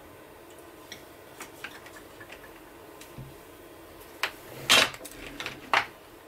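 Wooden shaft levers on a table loom knocking as they are pushed over, a few sharp clacks between about four and six seconds in, which raise the next shafts to pick out the warp threads for the reed. Before them come faint light ticks from threading.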